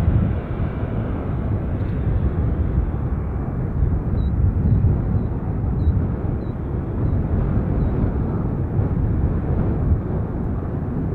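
Steady low rumble of jet aircraft noise across the airfield, with no clear engine whine standing out.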